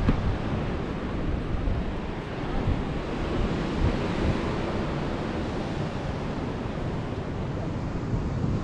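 Wind buffeting the microphone: a steady rushing noise with an irregular low rumble.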